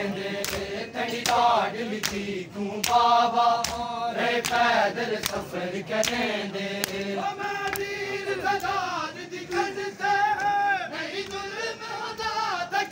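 Group of men chanting a nauha (mourning lament) together, over the sharp rhythmic slaps of matam, hands beating on chests. The slaps come about twice a second at first and thin out in the second half while the chanting goes on.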